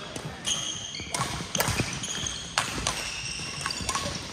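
Badminton rally: rackets striking the shuttlecock with several sharp smacks, mixed with short squeaks of sports shoes on the court floor.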